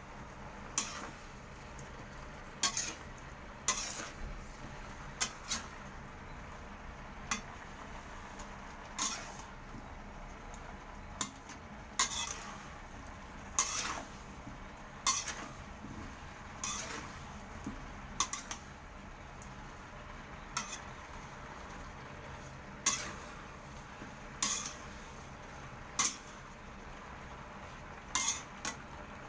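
Spatula scraping and clanking against a metal pan while stir-frying mixed vegetables and shrimp, in irregular strokes every second or two, over a faint steady hiss.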